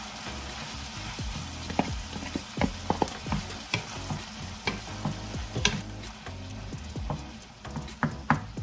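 Ground beef frying and sizzling in a pan, with irregular sharp clicks and scrapes of a utensil against the pan as it is stirred.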